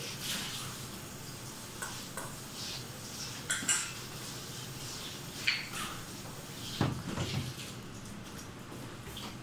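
Kitchen clatter: scattered light clinks and knocks of utensils and dishes, the sharpest clink about three and a half seconds in and a duller knock near seven seconds.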